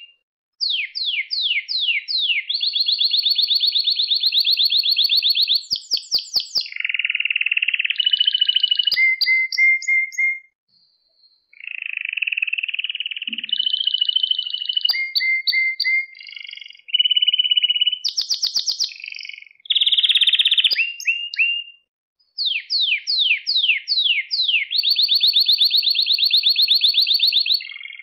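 Male domestic canary singing a long, varied song of rapid trills and runs of quick falling notes, breaking off briefly twice, about ten and twenty-two seconds in.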